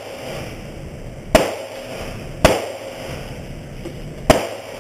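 Three single gunshots at uneven gaps of one to two seconds, each followed by a short echo off the range walls.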